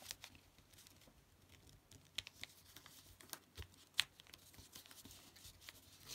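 Faint rustling and light ticks of a sheet of A4 paper being folded and its creases pressed flat by hand against a table, with one sharper tick about four seconds in.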